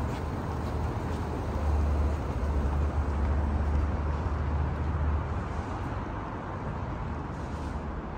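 City street ambience: a steady hum of distant traffic, with a deeper low rumble that swells about a second and a half in and fades after about five seconds.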